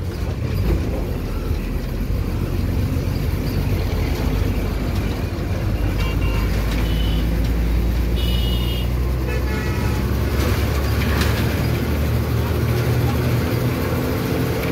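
Road traffic heard from inside the flow: a steady low engine and road rumble, with a few short horn honks between about six and ten seconds in.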